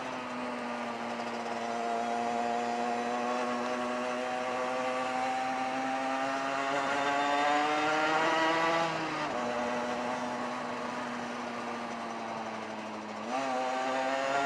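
Rieju RS2 Matrix Pro 50cc two-stroke single-cylinder engine running under way. Its pitch climbs slowly, falls sharply about nine seconds in, holds steady, then rises again near the end.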